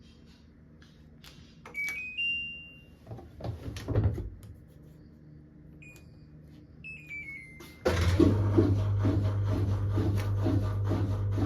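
Washing machine control panel beeping as its buttons are pressed, a short rising tune and then a falling one, with a few clicks between. About eight seconds in the machine starts up loudly with a steady low hum and a rhythmic swishing about three times a second.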